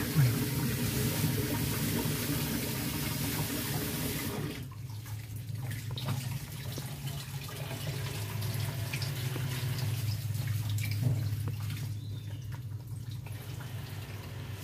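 Water sounds over a steady low hum; the hiss of the water drops away sharply about four and a half seconds in and goes on more faintly after.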